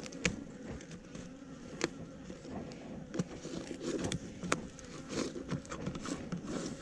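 Honeybees buzzing around their hive, a steady low hum, with scattered clicks and rustles of gloved hands handling tape and the hive.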